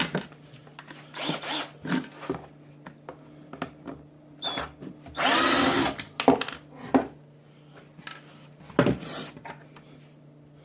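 Cordless drill with a 1/8 inch bit drilling a rivet hole in plastic dust-collection ductwork: one run of about a second, midway, its pitch sweeping as the motor spins. Shorter scraping and handling noises from the tool and duct come before and after.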